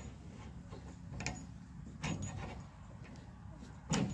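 Short metallic clicks and knocks as a metal rod pushes the piston and rubber seals into a combine's brake master cylinder held in a bench vise, a few seconds apart, over a steady low hum.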